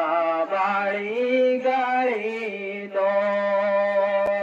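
A man singing a Bengali Islamic devotional song (gojol) unaccompanied into a microphone, holding long, drawn-out notes that bend in pitch.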